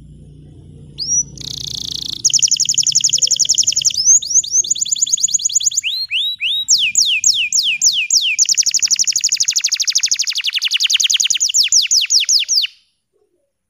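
Bottle-green domestic canary singing a long song of fast, rapidly repeated high trills, each note a quick falling whistle, with a short buzzy phrase near the start. The song begins about a second in and stops abruptly near the end.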